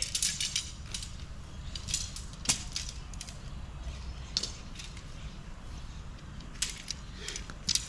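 Scattered light clicks and knocks from tent parts being handled during pitching, a few at a time, the loudest about two and a half seconds in.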